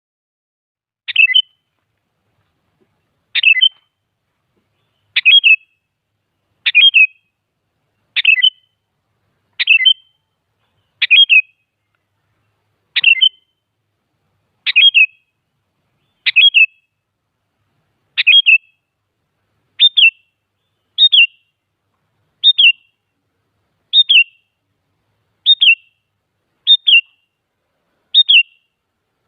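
Sooty-headed bulbul calling over and over: a short, sharp note that drops quickly in pitch, repeated about once every one and a half seconds with nothing else heard.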